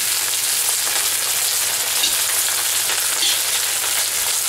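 Vegetable oil sizzling in a wok with leek, garlic, ginger, hot peppers and fresh cilantro frying in it, infusing the oil with their aroma. It is a steady hiss, stirred with a metal skimmer.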